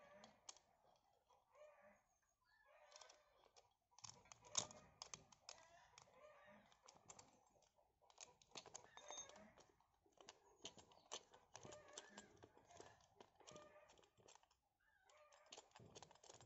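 Faint metallic clicking and tapping as a small hex key works the bolts of a chainsaw bracket on an angle grinder, tightening them; an irregular string of light clicks with one sharper click about four and a half seconds in.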